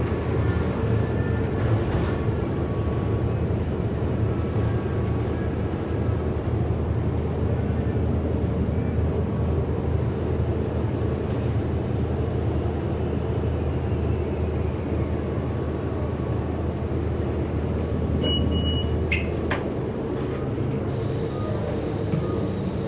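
Cabin noise inside a 2008 Orion NG hybrid-electric city bus in motion: a steady low drivetrain drone throughout, with a faint high whine in the first few seconds. About eighteen seconds in there is a short high beep, followed by a couple of sharp clicks.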